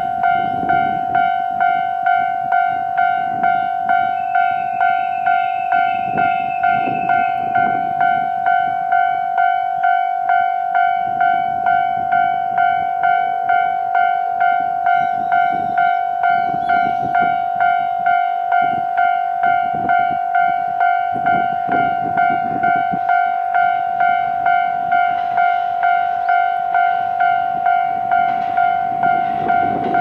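Japanese level-crossing alarm ringing its bell tone over and over at an even pace, the signal that a train is approaching. Near the end the low rumble of the approaching KiHa 40 diesel railcar rises underneath it.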